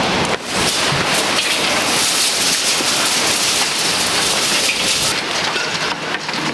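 Heavy rain pouring down in a tornado-producing thunderstorm, a loud, steady rush of noise.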